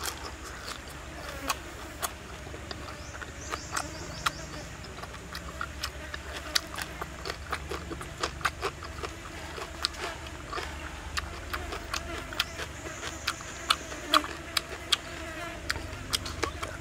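A person chewing crunchy raw vegetables close to the microphone: a stream of sharp crackly bites and mouth clicks. A high insect buzz comes and goes twice in the background.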